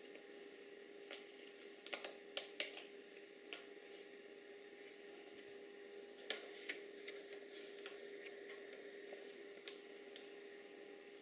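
Paper crinkling and rustling in a small child's hands, in short sharp crackles, with two clusters about two and six seconds in, over a faint steady hum.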